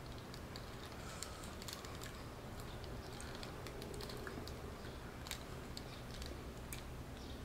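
A small plastic condiment sachet being worked and torn open by hand: scattered light crinkles and clicks over a faint steady low hum.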